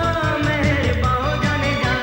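Bhangra-disco music with a steady, driving beat and a sliding melody line over it.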